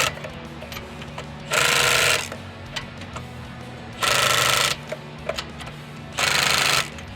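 Milwaukee M12 Fuel stubby 3/8" cordless impact wrench on its lowest setting running lug nuts down onto a truck wheel, in three short bursts of hammering, each about half a second long.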